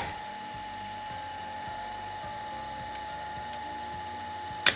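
A contactor clicks shut and a three-phase ABB electric motor runs unloaded with a steady whine and hum; near the end a second sharp click switches it off and the whine stops.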